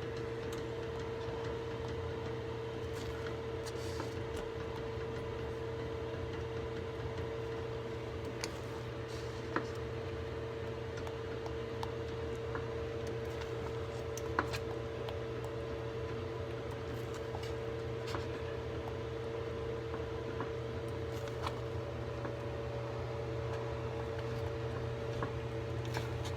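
Steady kitchen hum with a constant tone, under scattered light clicks and taps from a spoon stirring thick, boiling cornmeal mush in a pot; two sharper taps stand out partway through.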